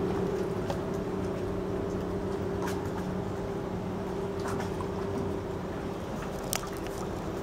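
An engine running steadily with a low, even hum, and a few light clicks and knocks over it.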